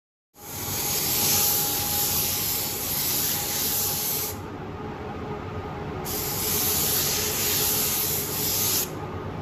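Paint spray gun hissing as it sprays paint onto a masked cabinet, in two long passes of about four and three seconds with a short lull between them, over a lower steady hum.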